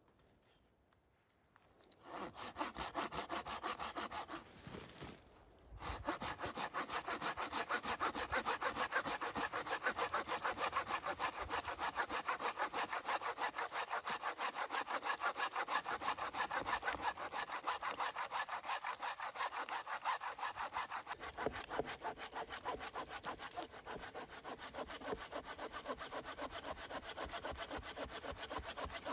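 Hand saw cutting through wood in quick, steady back-and-forth strokes. They start about two seconds in, stop briefly near five seconds, then run on evenly.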